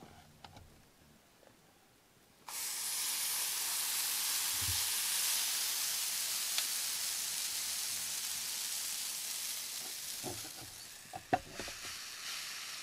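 Waffle batter sizzling and steaming on the hot plates of an Oster waffle maker, starting suddenly a couple of seconds in and easing off slowly. A few knocks come near the end as the lid is shut.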